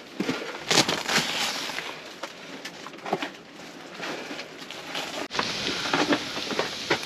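Strong gusting wind: irregular crackling and flapping surges with sharp snaps, rising and falling from one gust to the next.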